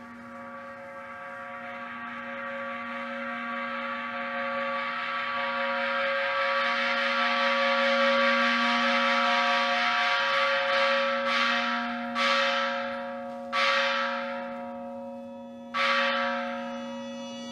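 Temple bell ringing to mark the start of a Buddhist service: its ringing tone swells steadily louder for about eight seconds, then it is struck three separate times, each strike ringing out and fading.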